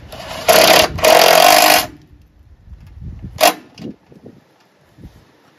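Cordless impact driver running a bolt into a chipper shredder's stand in two short bursts, the second about a second long, followed by a single sharp knock and some light clatter.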